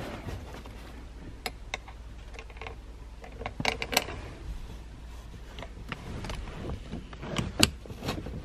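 Scattered light clicks and knocks of a seat-belt buckle and its mounting bracket being handled and fitted. The loudest clicks come near the end.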